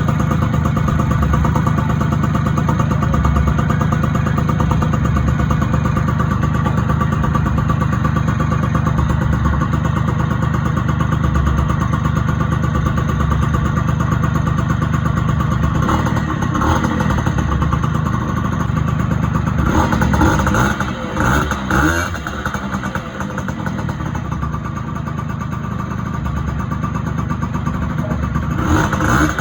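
Honda Dio scooter engine running through a new aftermarket exhaust pipe. It holds a steady note for most of the time, then is blipped a few times in the second half, the pitch rising and falling, with another rev near the end.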